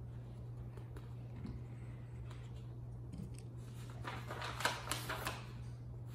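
Loose printed paper sheets rustling and crackling as they are handled and turned, a few faint touches early on and a louder run of crinkles about four seconds in, over a steady low hum.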